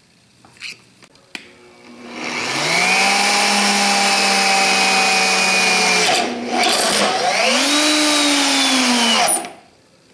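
VEVOR magnetic drill press motor driving a 3/8-16 coarse tap through the chuck: after a couple of small clicks it starts and spins up about two seconds in, runs steadily, drops out briefly about six seconds in, then starts again. The pitch then falls as the tap bottoms out in the hole, and the motor stops.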